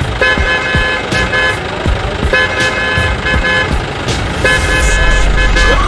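Electronic toy-vehicle horn sounding in three runs of short toots, over knocks and splashing from toy trucks driving through muddy water.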